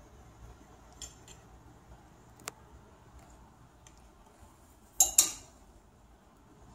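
A few faint clicks, then a brief loud rustling scrape in two quick peaks about five seconds in: handling noise as the phone brushes against dresses hanging close on a clothes rack.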